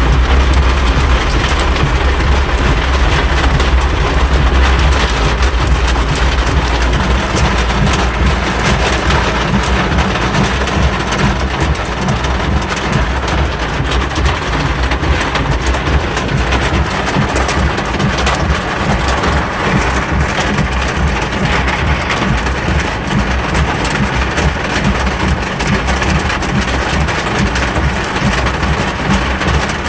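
Heavy rain drumming on a car's roof and windscreen, heard from inside the cabin, over the car's engine and the sweep of the wipers. A deep low rumble is strongest for the first several seconds, then eases.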